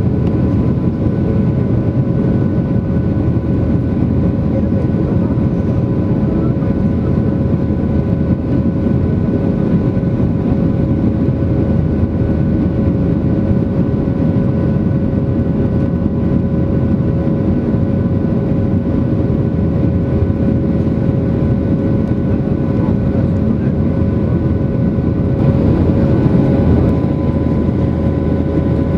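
Cabin noise of a Boeing 737-800 climbing after takeoff, heard from a seat over the wing: a steady roar of its CFM56-7B engines and the airflow, with a few steady tones over it. It gets a little louder and brighter near the end.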